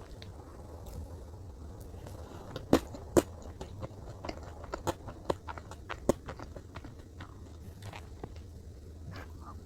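Close-miked eating sounds: a person chewing chocolate cake, with soft, sticky mouth clicks scattered through and two louder clicks about three seconds in.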